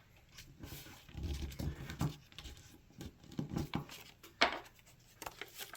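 Paper airplane being handled and its folded paper wing creased: scattered soft rustles and crinkles of paper, with a sharper crackle about four and a half seconds in.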